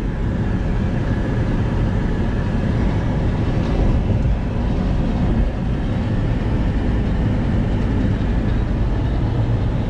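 Steady road noise inside a car's cabin at highway speed: tyres on the pavement and the engine running, mostly a low rumble.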